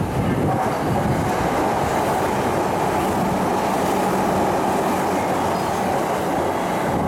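JR East E259 series Narita Express electric train running past the platform at speed: a steady, loud noise of wheels on rail and train running noise that does not let up.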